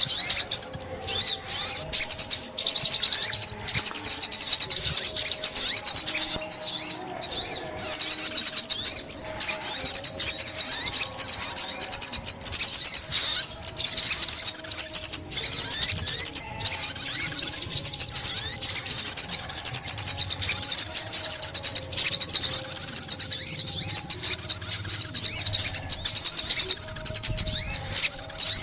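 Sunbird song: a continuous stream of rapid, high-pitched twittering and trills, with a few fainter lower notes underneath.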